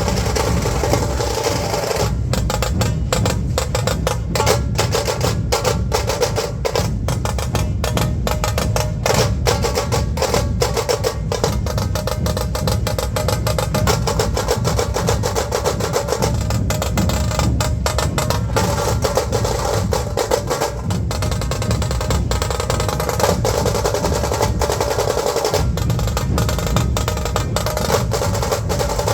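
Dhol drums played in a fast, dense rhythm: rapid, sharp stick strokes over continuous deep drum beats, loud and unbroken.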